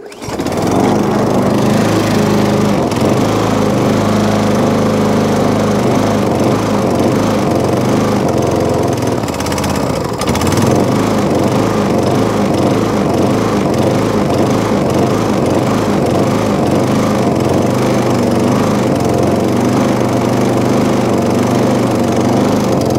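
MTD push mower's small petrol engine catching right at the start and running unevenly, its pitch wavering up and down as it hunts. The owner blames the rough running on the new air filter and a carburettor that still needs cleaning.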